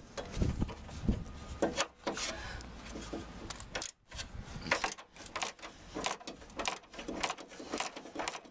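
Hand tools and hands working a bolt loose on a Land Rover Defender's front panel frame: irregular metal knocks and scrapes, then a run of quick clicks from about five seconds in, with rubbing close to the microphone.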